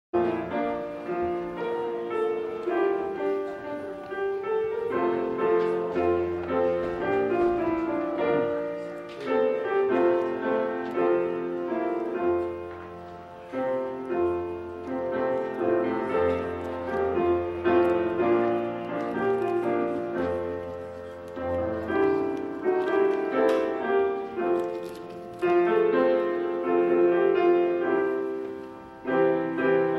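Grand piano being played, a continuous flow of notes and chords.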